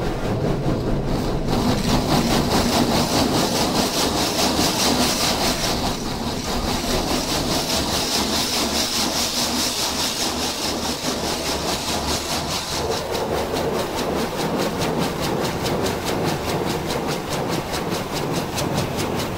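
Tammermatic T700 gantry car wash heard from inside the car's cabin: water jets spraying and running over the roof and windows, muffled by the glass, with a fast, even pulsing throughout. A hissing spray grows louder after a second or so and eases off about twelve seconds in, as the wash passes on to its lava foam stage.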